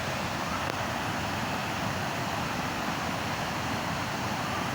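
Steady rushing of a waterfall: an even roar of falling water that holds level.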